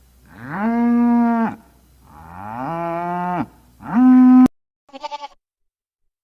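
A cow mooing three times, each long call rising in pitch and then holding steady; the third is cut off abruptly. It is followed by a short, quavering bleat from a goat.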